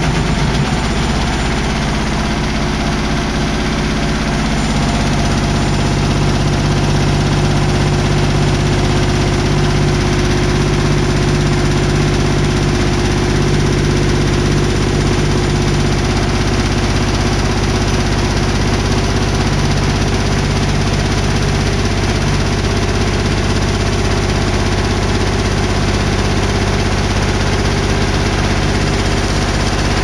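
Front-loading washing machine running a spin, a loud steady low hum with heavy vibration that fills out a little about five seconds in. The machine is shaking hard enough to move across the floor on its own.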